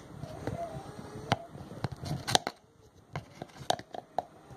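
Irregular light clicks and knocks of kitchen handling: a metal spoon tapping against a plastic margarine tub and a glass baking dish, the sharpest knock about halfway through.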